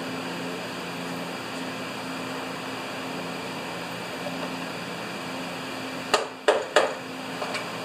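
Three sharp metallic clicks in quick succession about six seconds in, with a couple of fainter ones just after, from hands working the choke cable and linkage on a snowblower's Briggs & Stratton engine. Under them runs a steady low hum.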